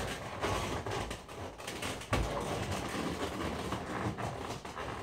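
Inflated latex balloons rubbing and squeaking against each other and against hands as a modelling balloon is worked through a donut balloon, in an irregular run of squeaks and rustles with a sharper bump about two seconds in.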